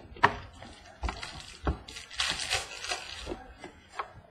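Trading cards and their pack being handled on a table: a few short taps and knocks, with a brief rustle of cards or wrapper a little past the middle.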